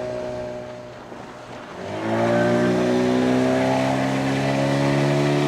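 Two-stroke outboard motor pushing a dinghy, eased off for a moment, then opened up again about two seconds in and held at steady higher revs.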